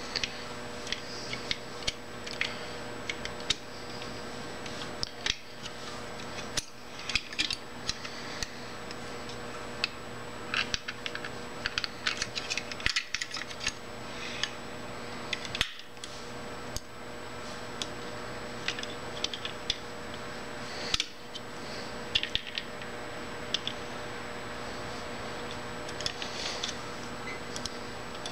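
Irregular small metal clicks and taps from a pick and hemostat forceps working the brush springs and carbon brushes of a Ford long-shaft electric motor as the brushes are refitted, some coming in quick clusters, over a steady faint background hum.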